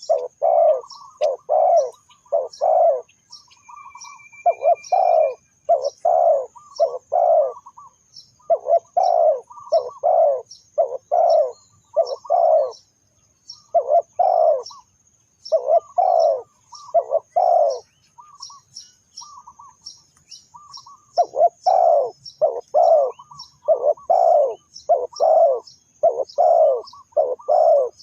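Spotted dove cooing: phrases of several loud, low coo notes repeated over and over, with short pauses between phrases. Faint, high, quick chirps run along behind them.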